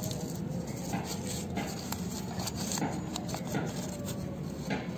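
Light rustling and small scattered clicks of a hand handling a paper banknote and debris in a hollow plastic toy-car body, over a steady low hum.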